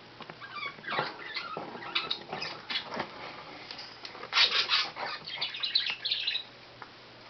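Pet rat eating Cheerios: irregular crisp crunches and clicks as it bites and chews the dry cereal, loudest about four to five seconds in.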